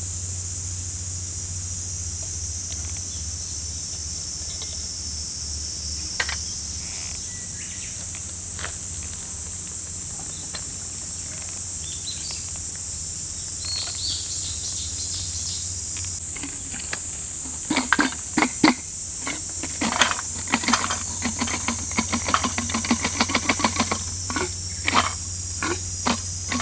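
Steady high-pitched buzzing of a summer insect chorus. From about two-thirds of the way in it is joined by a quick run of sharp clicks and knocks.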